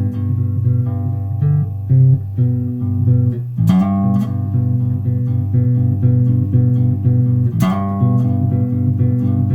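Electric bass played with a clean tone and no effects: a run of plucked notes with two sharper, louder string strikes, one a little over a third of the way in and another near the three-quarter mark.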